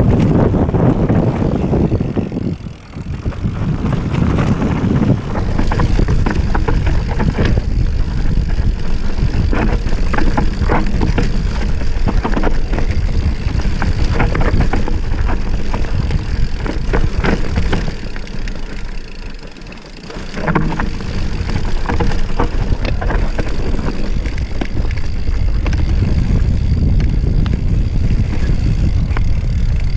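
Mountain bike ridden fast downhill on a rough dirt and gravel trail: steady rushing wind on the camera microphone with tyre noise and frequent knocks and rattles from the bike over bumps. The noise drops briefly about three seconds in and again around twenty seconds in.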